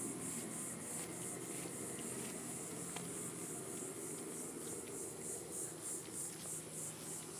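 High-pitched insect chorus pulsing evenly about three times a second over a low rumble.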